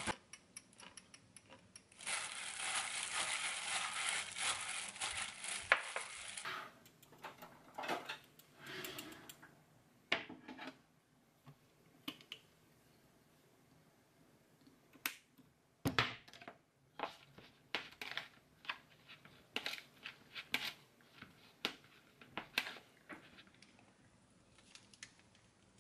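Kitchen food-prep handling sounds: a dense crinkling hiss for about four seconds near the start, then scattered light clicks and taps of a plastic rice paddle, bowls and utensils as rice is seasoned and spread.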